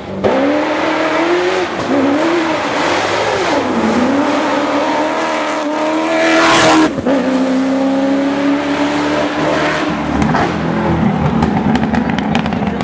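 Cross-country rally car engines revving hard, the pitch climbing and dropping back with each gear change. About six and a half seconds in, one car, a Ford Ranger rally pickup, passes close with a rising engine note and a rush of gravel and tyre noise, the loudest moment.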